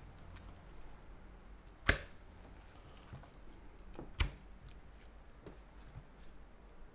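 Raw pork spare ribs being handled and turned over on a wooden cutting board: two sharp thuds of the rack against the board, about two seconds in and again about four seconds in, with faint handling noises between.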